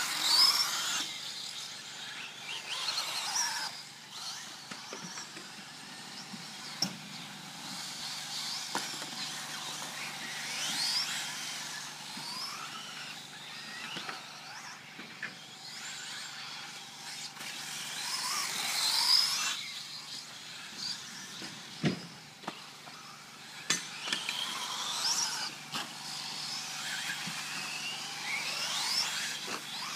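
Kyosho Lazer electric RC buggy lapping a dirt track, its motor whining up and down in pitch as the throttle is worked and the car comes past and moves away. There are a few sharp knocks along the way.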